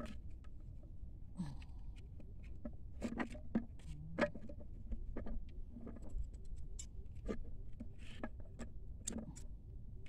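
Handling noise from a bottle trap being assembled: scattered light clicks, taps and rustles as a plastic bottle, string and wooden sticks are worked by hand, a little louder around the middle, over a steady low rumble.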